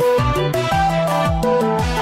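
Electronic background music: a synth melody over a steady beat of deep kick drums that drop in pitch.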